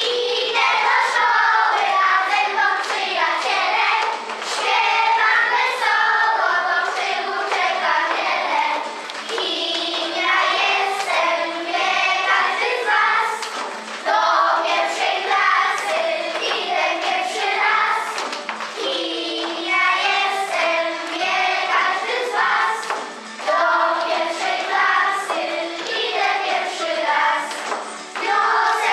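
A group of young girls singing a song together in unison.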